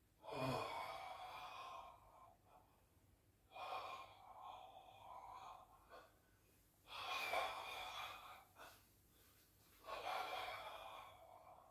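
A man breathing out audibly in long sighing breaths, four times, about three seconds apart, while swinging his arms overhead in a bioenergetic discharge exercise.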